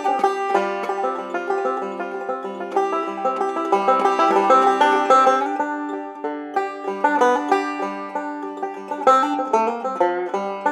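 Background music: a quick, busy tune of plucked-string notes, picked in a country or bluegrass style.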